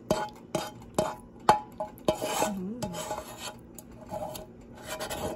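A utensil stirring thick, creamy fettuccine Alfredo in a pot, knocking and scraping against the pot's sides. There are several sharp clanks, about one every half second for the first two seconds, the loudest about one and a half seconds in, with soft rubbing and stirring between them.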